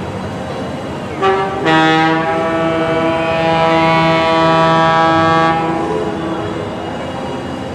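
Locomotive horn of an approaching train: a short toot about a second in, then one long blast of several blended notes lasting about four seconds.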